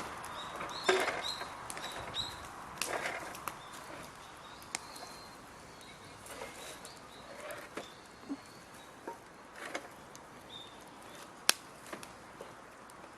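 Scattered knocks and clicks of wood being handled, busier in the first few seconds, with one sharp click near the end.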